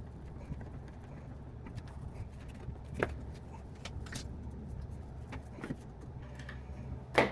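A few faint, scattered clicks and taps of small parts being handled over a steady low hum, with a sharper click near the end.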